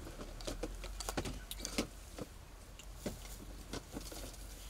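Scattered light clicks, taps and rattles of gear being handled, among them a rifle being readied, with a few sharper knocks.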